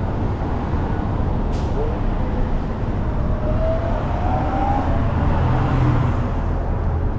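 Road traffic on a city street: a steady rumble of passing cars, with faint voices in the background.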